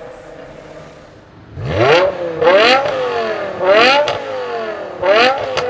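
BMW M5 E60's S85 5.0-litre naturally aspirated V10 idling, then revved in quick throttle blips about five times, each rise in pitch falling straight back.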